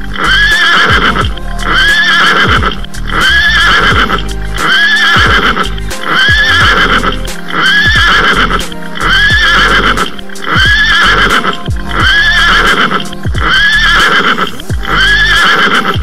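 Horse whinny repeated over and over, identical each time, about once every second and a quarter, with music underneath.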